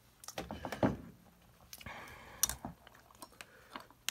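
Handling noise at a workbench: a scatter of small clicks, taps and brief rustles, busiest about half a second to one second in and again around two and a half seconds.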